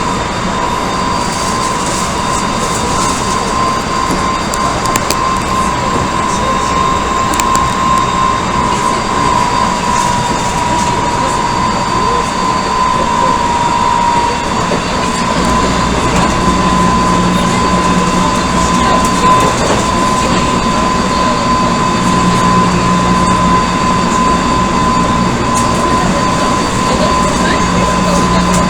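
Odakyu 1000 series electric train with Mitsubishi GTO-thyristor VVVF traction, heard from inside the car while running at speed. Its steady running noise carries a high, steady whine, and about halfway through a deeper hum and rumble join in.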